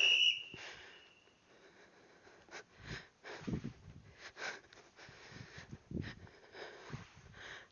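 A woman breathing hard in repeated breaths while doing burpees, with dull thuds of her body on the floor about three and a half and six seconds in as she gets down and jumps. A brief high tone sounds at the very start.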